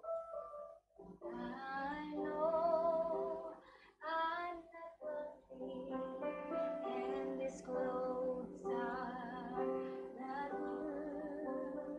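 A woman singing while accompanying herself on an Alesis Coda digital piano, her sung lines wavering over steady keyboard notes, with short pauses between phrases about one and four seconds in.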